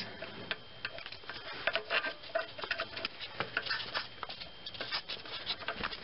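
Irregular light metallic clicks and taps as a timing chain tensioner is fitted by hand into its bore on a GM 2.2L Ecotec engine.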